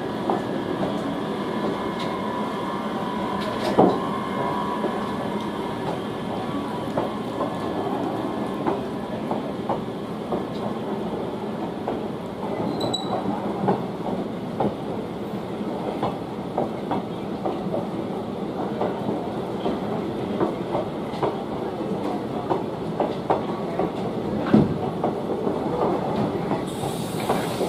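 Passenger train rolling past at low speed, its wheels clattering over the track with a dense run of irregular clicks and knocks over a steady rumble.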